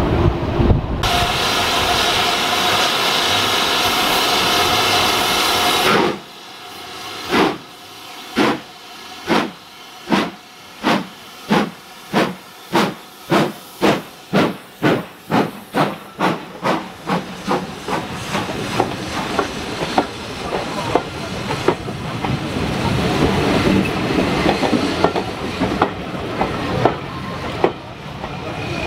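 Steam locomotive giving a long whistle of about five seconds, then setting off. Its exhaust chuffs start about a second apart and quicken steadily until they blur together. The coaches then roll past with wheels clattering over the rail joints.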